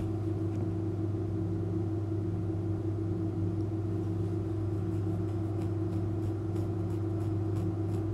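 Steady low drone: a deep hum with a few held low tones that neither rise nor fall. It is the sustained bed of the background music with the melody dropped out.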